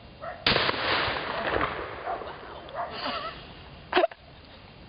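A single 20-gauge shotgun shot about half a second in, its report rolling away over the next second or so. A short, sharp knock follows about four seconds in.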